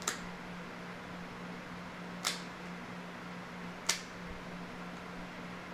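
Dog nail clippers snipping through a German Shepherd's toenails: three sharp snips, about two seconds apart, over a faint steady hum.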